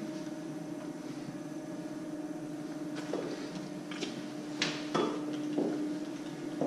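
Metal locker doors being handled: a few sharp clicks and knocks about three to five seconds in, the loudest near the middle of them, over a steady low hum.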